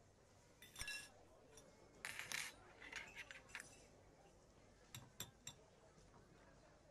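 Faint clinks of metal forks against plates during a meal, in several short clusters of light taps.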